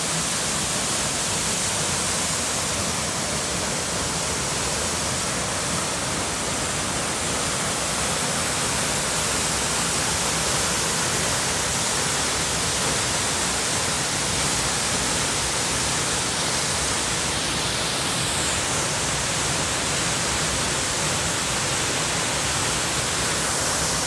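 Waterfall pouring down a rock face into a rocky stream: a steady, unbroken rush of water.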